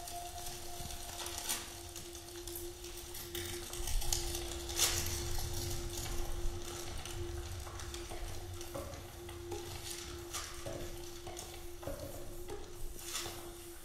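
Paper crinkled and rustled close to microphones, amplified into an irregular crackling, over a steady held tone at one pitch.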